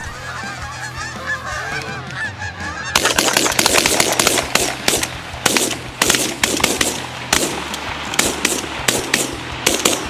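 Canada geese honking, then from about three seconds in a rapid, ragged volley of many shotgun blasts as several hunters fire at once, running until near the end.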